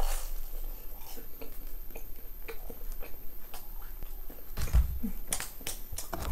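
Close-miked biting and chewing of a crusty, sesame-coated baked pastry: a sharp bite right at the start, then scattered small crackles and mouth sounds as it is chewed.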